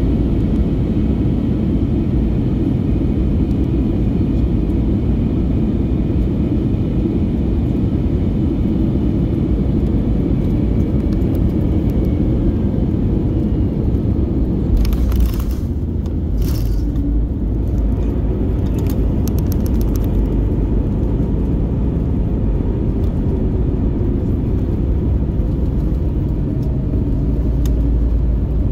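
Cabin noise inside an Airbus A321neo rolling on the ground after landing: a steady low rumble of engines, wheels and airframe. A few brief rattles and clicks come about halfway through.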